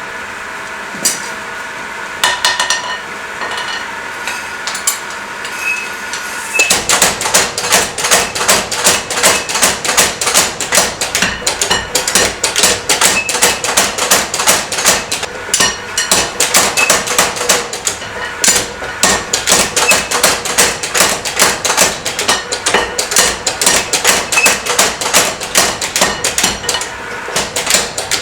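Hammer blows on steel while forging a hot cut hardie. There are a few separate strikes at first; then, about six and a half seconds in, a fast, steady run of blows begins, about three to four a second, and keeps going.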